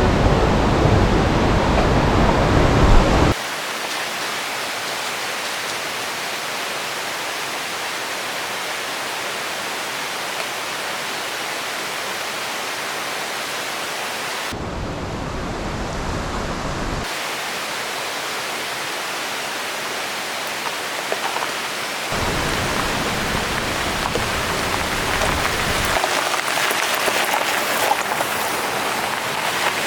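Steady rush of falling water from a small waterfall, with no tone or rhythm. It changes character abruptly several times, between a fuller, deeper rush and a thinner hiss.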